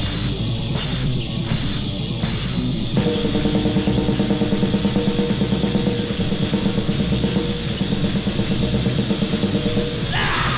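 Grindcore band recording with distorted guitar, bass and drums. It opens on a few stop-start hits about two a second, then breaks into fast, even drumming under a steady wall of guitar about three seconds in. A sound rises in pitch near the end.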